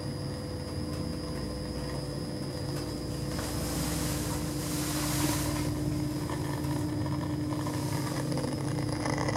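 Hospital passenger lift running: a steady low motor hum with a few steady whining tones above it, and a rushing noise that swells about three to six seconds in.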